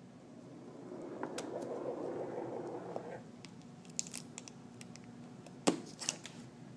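The adhesive-backed home button flex cable being peeled off an iPhone 5 display assembly, a scratchy peeling sound lasting about two and a half seconds, followed by a few light, sharp clicks of small tools on the phone parts.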